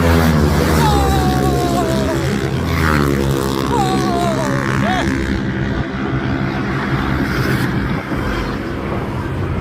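A motor vehicle going past, its engine note falling in pitch in the first few seconds, with a steady noisy rumble running on after it.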